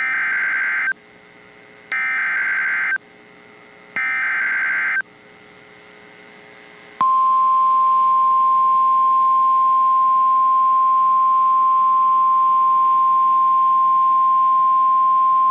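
Emergency Alert System SAME header: three one-second bursts of digital data tones about a second apart. About seven seconds in, the steady single-pitch 1050 Hz NOAA Weather Radio warning alarm tone begins; it announces that a severe thunderstorm warning is about to be read.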